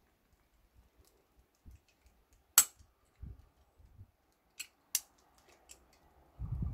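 A hand caulking gun clicking as it is squeezed to lay adhesive on an aluminium composite panel: one sharp click about two and a half seconds in and two more around five seconds. A low rumble comes in near the end.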